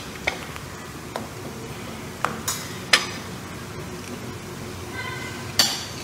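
Cutlery clinking and scraping against a china plate during a meal: several short, sharp clinks, the loudest about three seconds in and another near the end.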